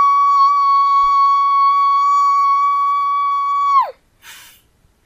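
A person making a strange noise with the mouth: one high, steady whistle-like tone, held level, that drops sharply in pitch and cuts off about four seconds in, followed by a short breathy hiss.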